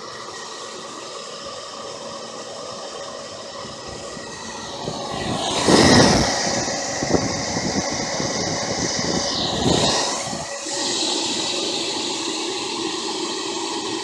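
A 4-inch 12-volt Attwood Turbo blower fan running steadily, a whirring rush of air with a faint steady hum. The rush swells loudly about six seconds in and again near ten seconds, then settles into a louder steady rush from about eleven seconds.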